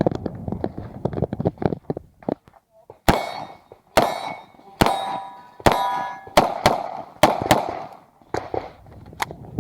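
Gunshots from a 9 mm Uzi Pro pistol: a quick string of shots, then about ten shots spaced roughly half a second to a second apart. Each of the later shots is followed by the ringing clang of a steel target being hit.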